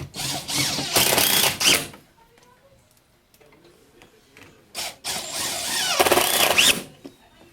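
Cordless drill-driver driving screws, in two bursts of about two seconds each with the motor pitch rising and falling as it runs up and slows.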